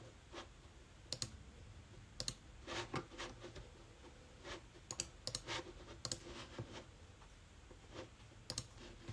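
Scattered sharp clicks and softer handling sounds at an irregular pace, about a dozen over the stretch.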